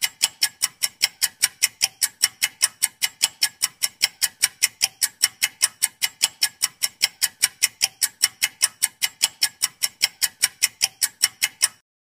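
Ticking clock sound effect used as a quiz countdown timer: even, sharp ticks at about four a second that cut off suddenly shortly before the end.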